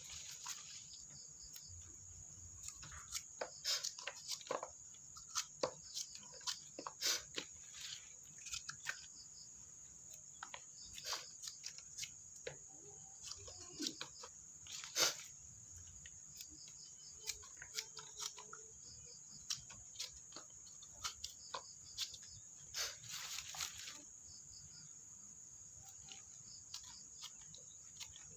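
Insects trilling steadily at a high pitch, with irregular short clicks, snaps and rustles over it.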